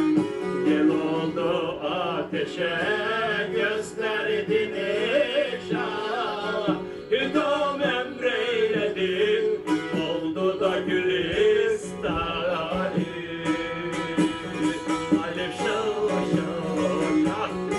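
Semah music: a plucked bağlama (Turkish long-necked lute) plays a steady droning accompaniment while a man sings a wavering melody over it.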